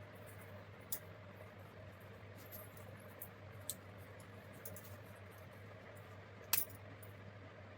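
Faint steady low hum with scattered light clicks and taps, one sharper click about six and a half seconds in.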